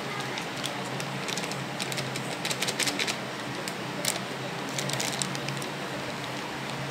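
Thin plastic bag crinkling in short crackly bursts as flour is shaken out of it, over a steady low hum.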